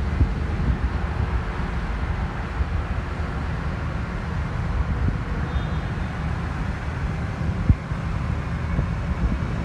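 Rolls-Royce Trent XWB jet engines of an Airbus A350 running, heard as a steady low rumble mixed with wind buffeting the microphone.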